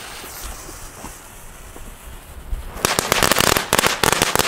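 Magic Whip ground firework burning with a steady hiss, then about three seconds in breaking into loud, rapid crackling, a dense run of small pops.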